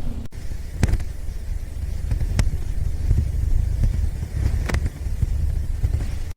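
Robot vacuum running, a steady low rumble picked up by the camera riding on it, with three sharp knocks about one, two and a half, and nearly five seconds in.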